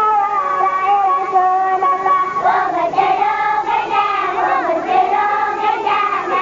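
A crowd of children singing together in unison. They hold long high notes, with the pitch sliding up and dropping back every second or so.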